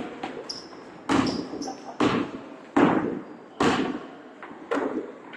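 A ball thudding on a wooden sports-hall floor about once a second, five times, each thud echoing around the hall, with brief high squeaks of shoes on the court between them.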